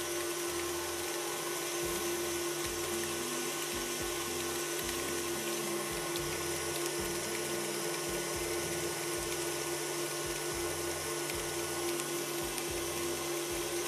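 Background music with a steady, even beat of low notes about once a second.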